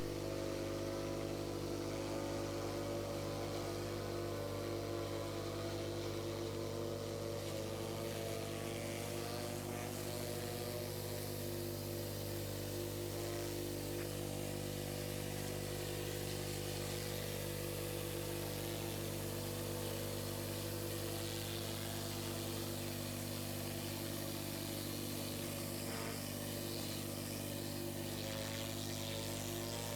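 Pressure washer engine running steadily at constant speed, a low, even hum.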